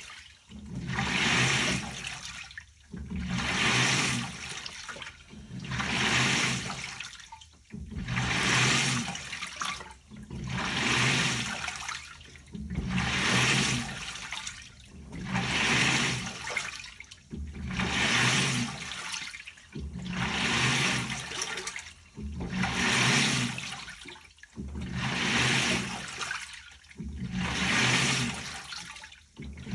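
LG TurboDrum WTR807 direct-drive top-loading washer agitating its load, water swishing in a surge with each stroke, about every two and a half seconds, with a low motor hum under each stroke.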